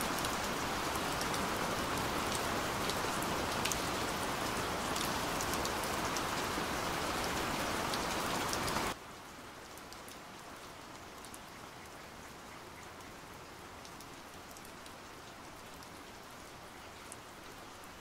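Heavy rain falling, a dense steady hiss with sharp drops pattering close by. About nine seconds in it cuts to much quieter, steady rain with only occasional drop ticks.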